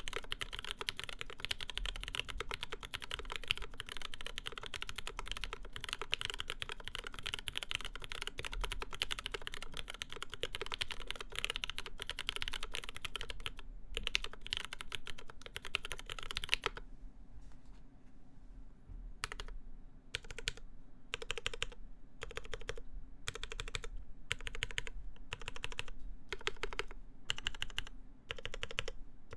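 Kyuu mechanical keyboard with an aluminium full plate, GMK keycaps and lubed linear MX Black switches on UHMWPE stems, being typed on. Fast continuous typing stops about two-thirds of the way through. After a pause of about two seconds come slow, evenly spaced single key presses, about three every two seconds.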